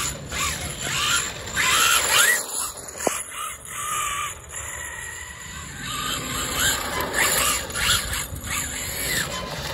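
Brushless motor of a 1/5-scale electric RC car (HW 800kv motor, Max 5 ESC) whining as it is driven on and off the throttle, its pitch rising and falling again and again, with one longer rising run about two seconds in.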